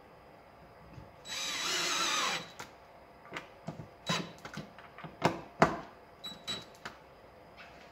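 DeWalt cordless drill-driver running for about a second, driving a self-tapping screw through a metal bracket into the stone resin basin. A string of sharp clicks and knocks follows.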